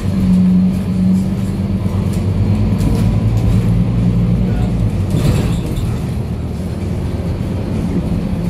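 Diesel engine of a Scania K310UB bus running steadily at idle, heard inside the passenger cabin, with a short hiss about five seconds in.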